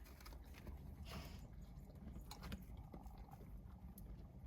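Faint, scattered crunching of dogs biting and eating fresh snow, a few short crunches over a low steady rumble.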